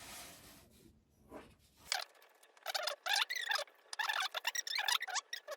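Brush strokes spreading liquid egg dye over a piece of pine plywood: from about two seconds in, a quick run of short scratchy strokes with squeaky, bending pitches.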